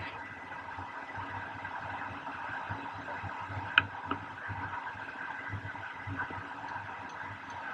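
Steady rush of wind over a pole-mounted action camera during paraglider flight, with a single sharp click a little under four seconds in.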